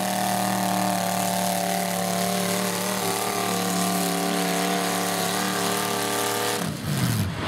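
Tractor engines running steadily at idle to mid speed, the pitch shifting slightly partway through. Near the end the steady note breaks up and a lower pitch falls away.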